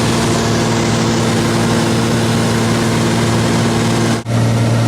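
Cessna 210's piston engine and propeller in flight, a steady drone with a humming tone. About four seconds in it drops out for an instant, and afterwards the low hum is stronger.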